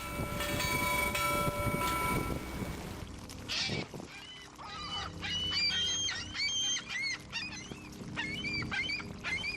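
A steady, multi-tone horn sounds for about the first two seconds over a low rumble, then seagulls call repeatedly in rising-and-falling squawks through the rest.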